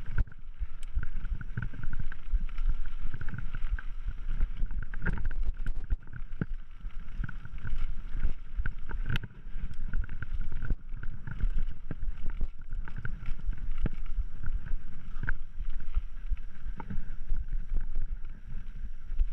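Mountain bike riding over a dirt trail: tyres rumbling on the ground, wind buffeting the microphone, and the bike rattling with many sharp knocks and clicks over bumps.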